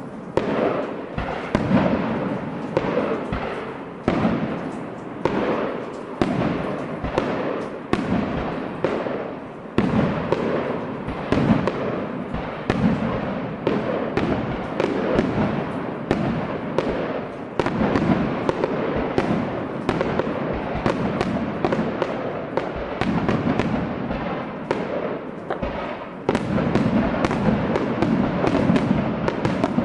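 Fireworks display: aerial shells bursting in rapid, overlapping bangs several times a second, with crackle between them. The bursts grow denser and louder near the end.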